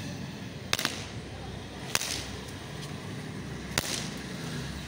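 Small firecrackers popping sporadically on a concrete floor: three sharp cracks, the first a quick double, spaced about a second or two apart, over a faint low rumble.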